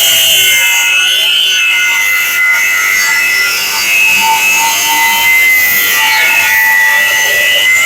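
Angle grinder grinding steel, a loud high whine that wavers and sags in pitch as the disc bears into the metal.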